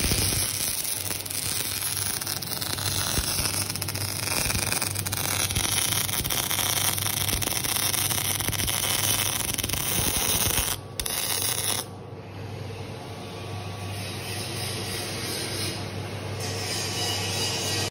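Electric arc welding on steel: the arc crackles and sizzles steadily over a low hum, breaking off briefly about eleven seconds in and running quieter after that.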